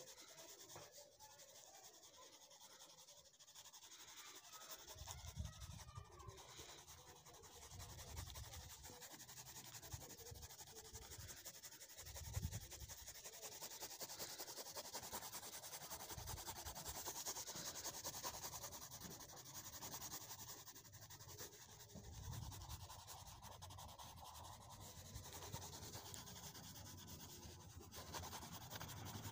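Faint, steady scratching of a coloured pencil rubbing back and forth across paper as an area is shaded in, with a few soft low thumps.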